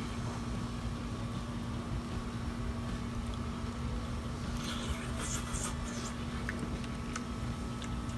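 Steady background noise from a neighbouring house: a constant hum over a low rumble. A few short clicks come about five seconds in.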